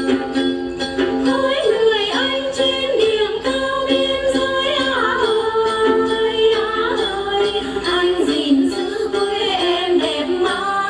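Hát then performance: several đàn tính gourd lutes plucked together in a steady rhythm. Voices sing a wavering, sliding melody over them from about a second and a half in, with a jingle of small bells keeping time.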